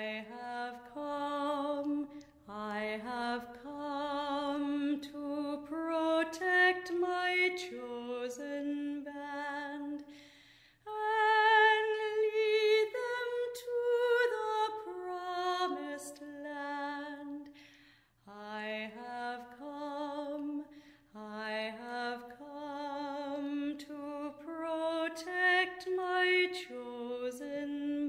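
A solo voice sings a slow, unaccompanied hymn-like melody with vibrato, in phrases with short breaks between them.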